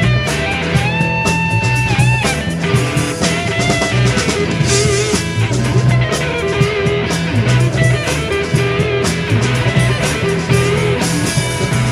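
Live rock band playing an instrumental passage: electric guitars with held and bent lead notes over bass guitar and drum kit.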